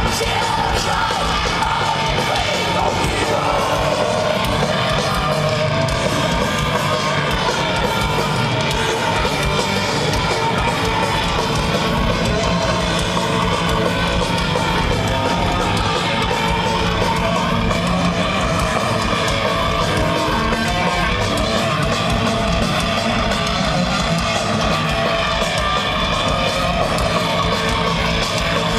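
Thrash metal band playing live, loud and without a break: distorted electric guitars over bass and drums.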